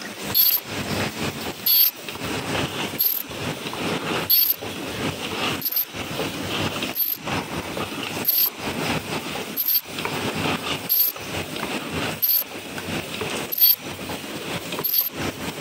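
Paper cup forming machine running at a steady working cycle: a continuous mechanical clatter that repeats about every 1.3 seconds, each cycle with a brief high hiss.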